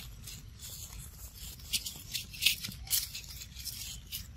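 Dry leaf litter crackling and rustling under macaques, with a few short, sharp crackles about two to three seconds in, over a low steady rumble.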